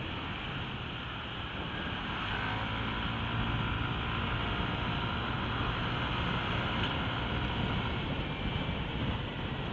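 Yamaha NMAX scooter cruising at steady speed: its single-cylinder engine running evenly under a constant rush of wind and road noise.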